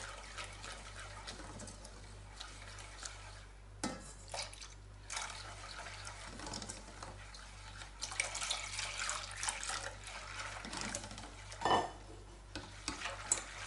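Balloon whisk stirring a thin custard mixture of eggs, sugar, flour and milk in a stainless steel pot: the liquid swishes and the whisk scrapes and clicks against the pot, with one louder knock near the end.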